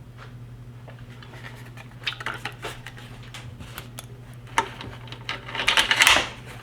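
Handling of the Mosin-Nagant rifle and its metal parts: scattered light metallic clicks and clinks, growing busier, with a louder rattling, scraping cluster shortly before the end. A steady low hum runs underneath.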